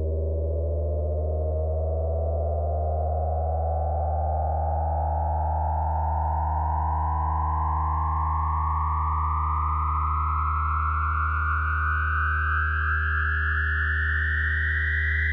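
Analogue synthesizer drone through a hand-made 1976 voltage-controlled filter: a steady low hum with several held overtones, while a whistling resonant tone glides slowly and evenly upward about two octaves as the filter is swept.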